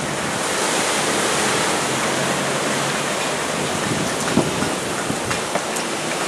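Heavy thunderstorm rain pouring down in a steady rushing hiss, with a few short taps.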